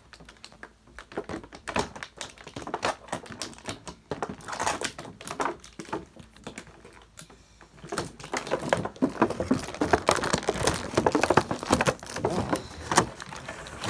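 Clear plastic blister packaging of a toy figure being handled: scattered clicks and crinkles, sparse at first and growing busier and louder in the second half.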